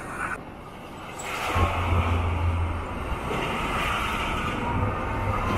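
Highway traffic with heavy trucks passing close by: tyre noise and a low diesel rumble that swells about one and a half seconds in.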